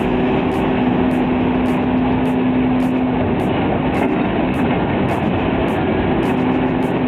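A heavy vehicle's engine running steadily, with a held low hum and evenly spaced sharp ticks about twice a second.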